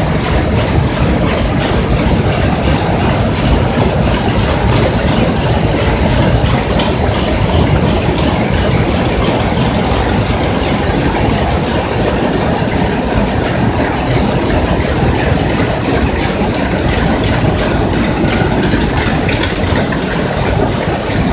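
A shed full of Shiva DR II rapier looms running at once, weaving linen: a loud, steady mechanical din with a fast, even clatter of picks.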